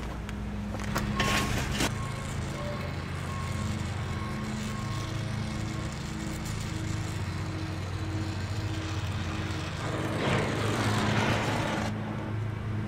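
Electric arc welder tack-welding a joint in a square-tube frame: the arc crackles and sizzles for about two seconds near the end and then stops, with a shorter burst of noise about a second in, over a steady low hum.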